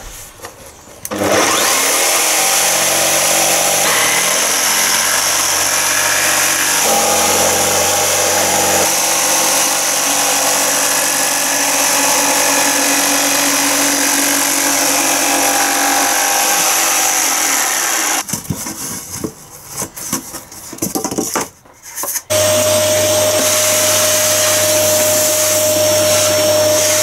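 Corded Makita jigsaw cutting a hole through a two-layer plywood floor with insulation between, running steadily for about seventeen seconds with a few shifts in pitch as it cuts. After a few seconds of stopping and starting, a vacuum cleaner runs steadily with a high whine.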